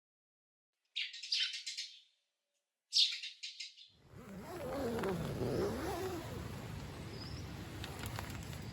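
Two short, high, rapidly pulsed chirping calls about two seconds apart. Steady outdoor background noise with a low wavering sound follows.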